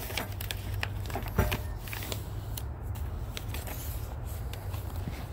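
Scattered small clicks and rustling over a low steady hum, with one louder knock about a second and a half in.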